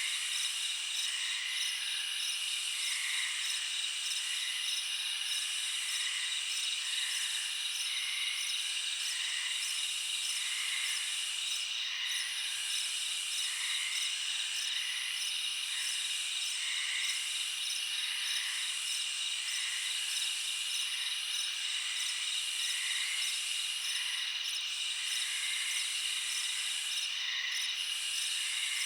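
Chorus of night insects: crickets trilling steadily, a very high buzzing that swells and drops back about every two seconds, and shorter lower calls about once a second.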